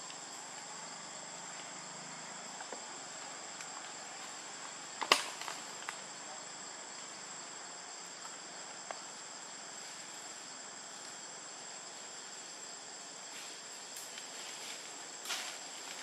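Steady high-pitched drone of forest insects, with one constant high note running through it. About five seconds in, a single sharp click cuts in, the loudest sound here, and a few small clicks follow near the end.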